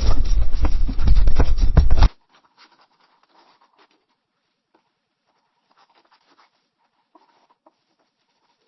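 Pencil writing on paper: loud, dense scratching strokes that cut off suddenly about two seconds in, followed by a much fainter take of sparse pencil strokes.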